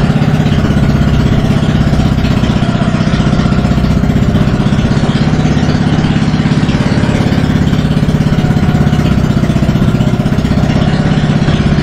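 Outrigger bangka boat's engine running steadily at a constant speed, loud and even, with a rapid, regular pulsing throb.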